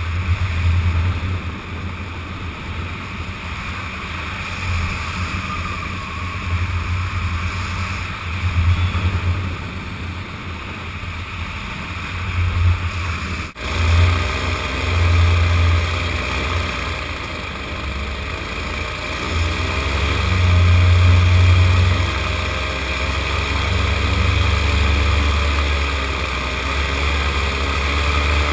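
Paramotor's engine and propeller running steadily in flight, with wind buffeting the microphone. The sound drops out for an instant about halfway through, after which the engine's pitch is steadier and clearer.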